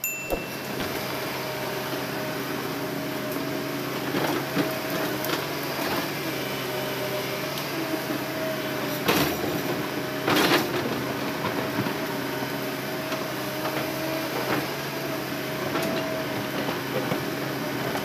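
Hydraulic excavator at work in logging: diesel engine running steadily with a steady whine, and a few sharp knocks and clanks, the loudest about halfway through.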